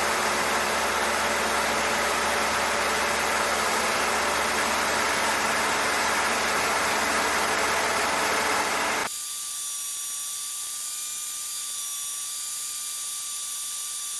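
Cessna 152 engine and propeller noise in the cockpit, a dense steady drone. About nine seconds in it cuts off abruptly to a much quieter bed with a faint, steady high-pitched whine.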